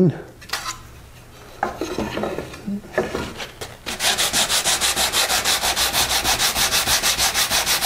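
Sandpaper rubbed by hand along the edge of a wooden box, with the grain, to round over the sharp edge; the quick, even strokes come about five a second from about four seconds in. Before that, a few light knocks as the box is handled.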